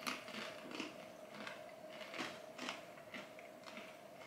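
Faint, irregular crunching of pretzel crisps being bitten and chewed, a few crackly clicks each second.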